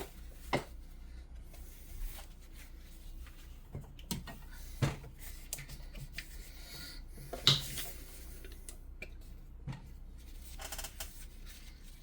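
A few scattered light knocks and taps of small computer hardware, a graphics card and its heatsink, being handled and set down on a work surface, with some soft rustling between. The loudest knock comes past the middle.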